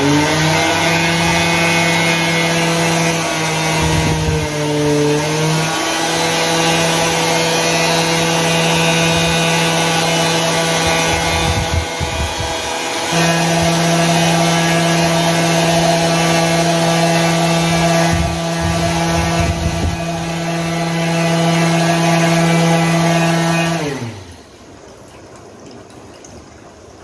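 Homemade bottle vacuum cleaner's 12 V RS-550 DC motor and fan running with a steady whine. The pitch dips briefly about four to five seconds in, and near the end the motor is switched off and winds down with a falling pitch.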